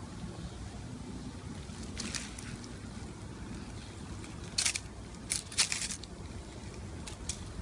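Tortoise eating watermelon: short wet crunching and rustling as the melon is bitten and the rind is shifted on dry leaves. The noises come in a few brief bursts, the loudest clustered around the middle, over a steady low hum.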